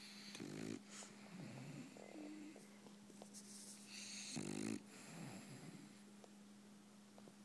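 A French bulldog snoring in its sleep: two loud snores about four seconds apart, each about half a second long, with quieter breathing sounds between them.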